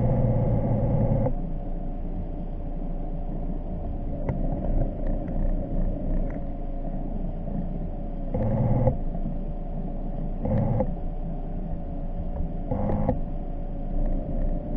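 Electric thruster motors of an underwater drone running, heard through its hull: a steady whine with three short surges of thrust about halfway through and again near the end.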